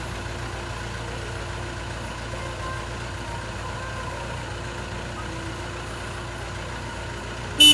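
JCB 3CX backhoe loader's diesel engine running steadily at a low, even speed, with one short, sharp, loud sound right at the end.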